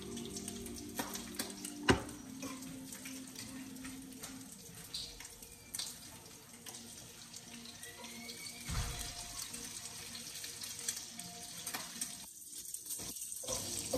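Bacon sizzling in a frying pan, a steady hiss with scattered small pops. A knife knocks sharply on a cutting board about two seconds in, the loudest sound here.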